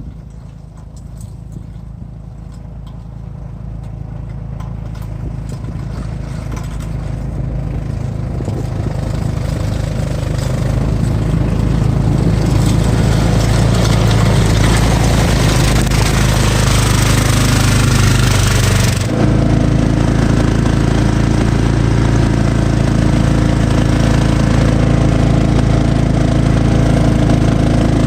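Cub Cadet XT1 lawn tractor engine running under load with its three-stage snow blower attachment, growing steadily louder over about twelve seconds as it comes closer. About two-thirds of the way through, the hissing rush on top stops suddenly and the sound changes to a steadier engine hum with higher tones.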